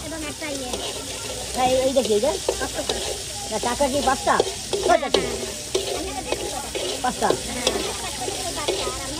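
A flat metal spatula stirs and scrapes pieces of fish around a wok-shaped karai, with oil sizzling underneath. The scraping comes in quick, irregular strokes and is busiest from about one and a half to five seconds in.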